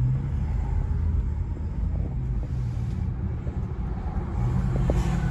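Low rumble of road and engine noise inside a moving Acura car, with a low hum that is strongest at the start and again near the end.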